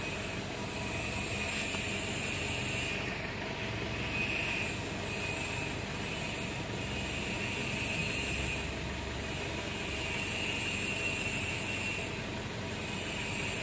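Mitsubishi Strada Triton's common-rail diesel engine idling steadily at about 700 rpm, warmed up, while the ECU runs its small injection quantity learning for newly fitted injectors.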